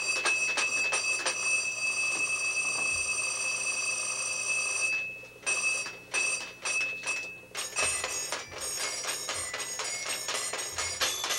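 Battery-powered children's pop-up toy ringing with a steady electronic tone over a clicking about four times a second. It stops about five seconds in, and from about eight seconds a different tone with clicking takes over.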